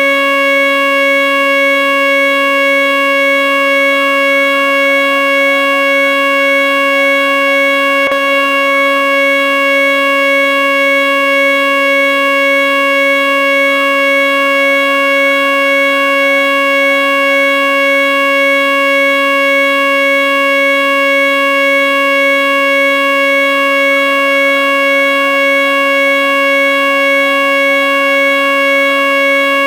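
Whelen WPS-2908 electronic outdoor warning siren sounding its Alert signal: one loud, unbroken steady tone. A fainter siren slowly rises and falls behind it, the distant wail of a Federal Signal 2001-130.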